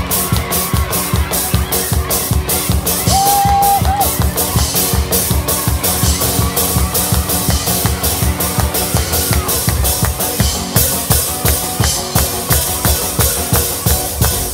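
Live band playing an instrumental passage of a Russian Christmas song, led by a drum kit keeping a fast, steady beat.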